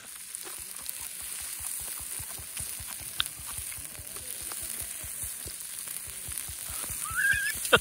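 Pork belly sizzling and crackling on an electric grill: a steady hiss with constant fine spitting, and a sharp click near the end.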